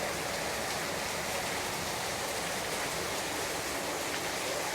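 Steady rain falling, an even hiss with no separate drops or breaks.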